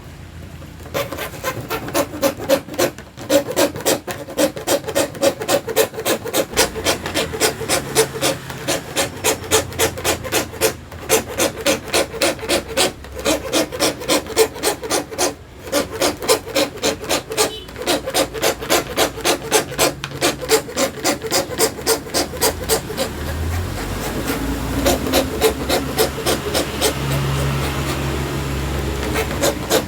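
Hand plywood saw cutting acrylic sheet in quick, even back-and-forth strokes, about three or four a second, with a few short pauses. A low rumble joins in near the end.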